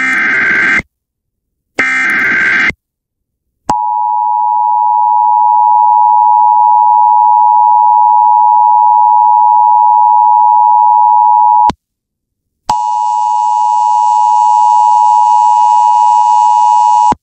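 Emergency Alert System broadcast tones: two short bursts of the SAME digital header, each about a second long and a second apart, then the steady two-tone EAS attention signal for about eight seconds. After a one-second break the attention tone returns, slightly harsher, and runs for about four and a half more seconds. They signal the start of a flood warning alert.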